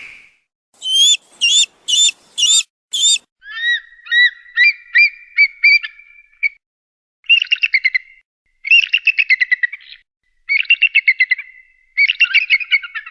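Eagle calling: about five sharp high chirps, then a quicker run of rising piping notes, then several stretches of rapid, high-pitched chattering.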